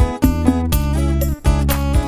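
Background music: a strummed guitar over sustained bass notes, with a regular stroke about twice a second.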